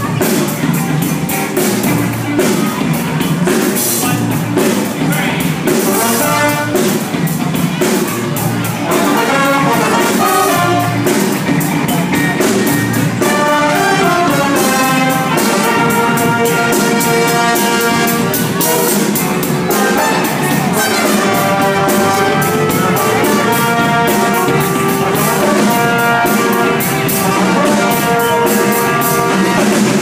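A high school band plays live: a brass section of trombones and trumpets over a steady beat from a drum kit. The brass holds longer chords through the second half.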